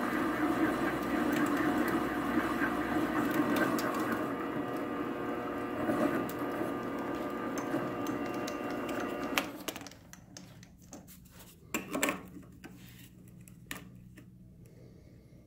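Small benchtop metal lathe running steadily, its motor and drive giving a whirring whine, while it takes light sizing cuts on a steel washer held on a bolt in the chuck. It shuts off sharply about nine and a half seconds in, and a few faint clicks from handling the part follow.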